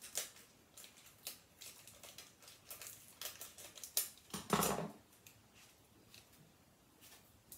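Scissors making short snips through adhesive tape, with tape handled and crinkled in the fingers; one louder, longer rasp comes about four and a half seconds in, and the snips die away after that.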